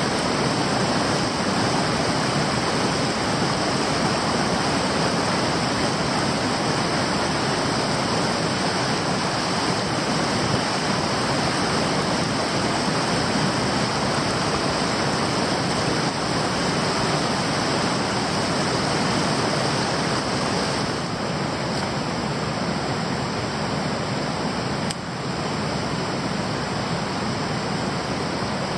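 Stream water rushing steadily over rocks: a constant loud rush, a little quieter from about 21 seconds in.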